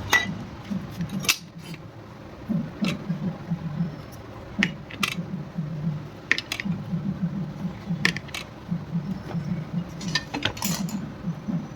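Metal engine parts and hand tools clinking and clicking during motorcycle engine assembly: scattered sharp metallic clicks and knocks at uneven intervals over a low, uneven rumble.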